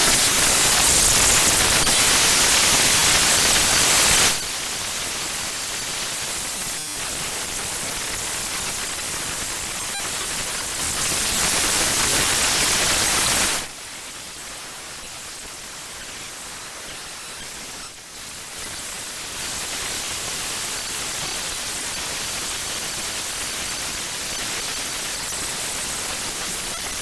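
A Mario game file's raw binary data played back as audio: harsh static-like noise that changes abruptly in blocks, loudest for the first four seconds, louder again briefly around halfway, then settling into a quieter steady hiss.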